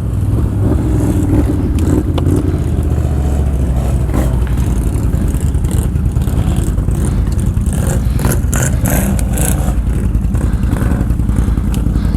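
ATV engine running steadily at low speed under load, with scattered clattering knocks, most of them about eight to ten seconds in.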